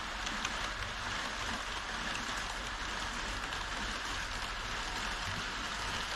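HO scale model freight train of Koki 104 container wagons rolling along elevated Kato Unitrack, giving a steady rattle of many small metal wheels on the rails.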